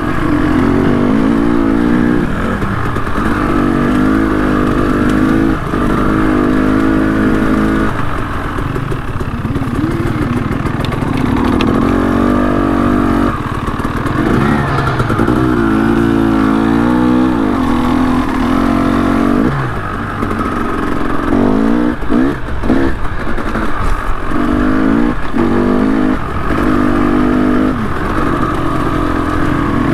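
Trail motorcycle engine pulling in repeated bursts, its pitch rising and falling as the throttle is opened and shut over and over on a rough lane. A run of knocks and rattles comes about two-thirds of the way through.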